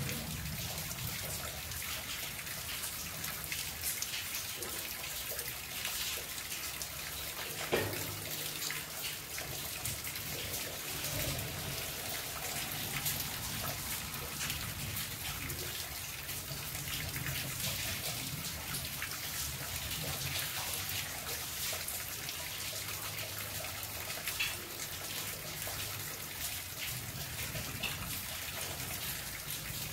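Steady rain falling, a constant hiss dotted with many small drop ticks, with one sharp tap about eight seconds in.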